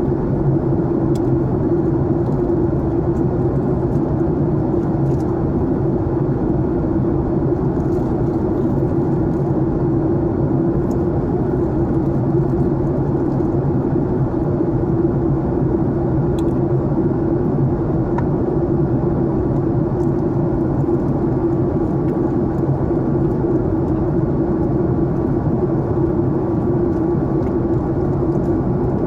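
Steady cabin noise of a jet airliner in flight: the engines droning and air rushing past the fuselage, with a steady low hum.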